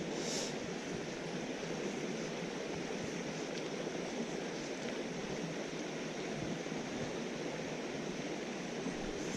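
Mountain stream water running over rocks in a steady rush, with one brief hiss about half a second in.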